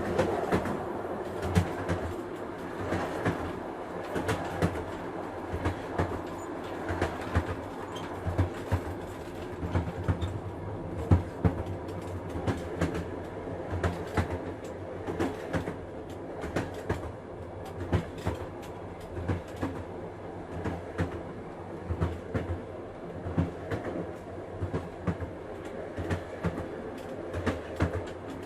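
Train running along the track, heard from inside the carriage: a steady rumble with frequent short clattering knocks of the wheels on the rails.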